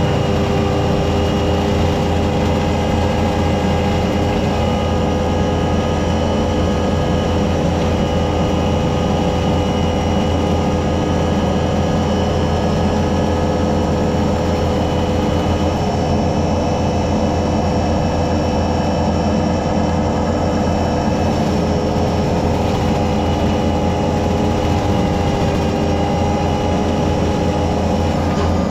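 Kubota SVL65 compact track loader's diesel engine running steadily, driving a hydraulic brush cutter through tall grass and brush, with a steady whine over the low engine rumble.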